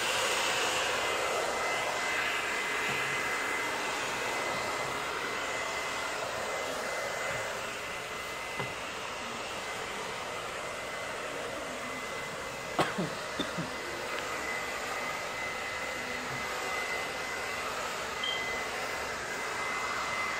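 Handheld hair dryer blowing steadily, with a thin high whine over the rush of air. A few brief knocks come a little past the middle.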